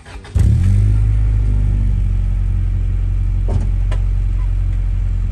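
Acura Integra's four-cylinder engine starting through a newly fitted Yonaka 2.5-inch cat-back exhaust: it catches about half a second in with a short rev flare, then settles into a steady idle.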